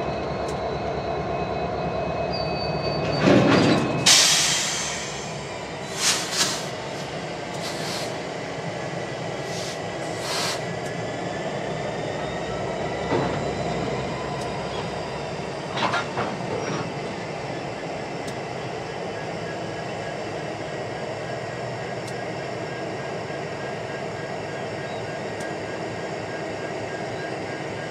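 Union Pacific diesel locomotive running steadily as it slowly moves a string of freight cars while switching. A loud burst of noise comes about three seconds in, followed by several shorter sharp bursts over the next dozen seconds.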